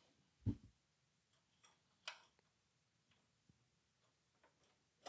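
Near silence broken by a soft thump about half a second in, a sharper click about two seconds in and a few faint ticks: computer expansion cards being handled.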